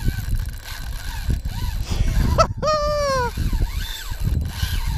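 Spinning reel's drag giving line to a running jack crevalle, heard as a short whine that falls in pitch about two and a half seconds in, with fainter whines around it. Wind rumbles on the microphone throughout.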